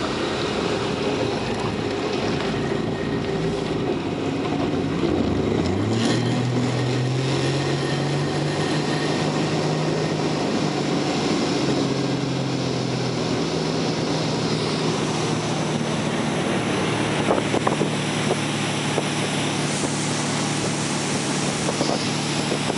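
Inboard engine of a 1990 Malibu Skier ski boat running under way, its note rising about five seconds in as the boat speeds up from about 15 to 30 mph, then holding steady. Wind buffets the microphone and water rushes past the hull.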